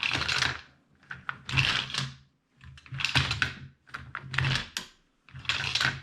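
Mag Pump 9mm magazine loader being cycled by hand: the handle is pushed down and up about five times, each stroke a mechanical clatter with loose cartridges in the hopper. These are the first strokes, which can take a few before rounds start feeding into the magazine.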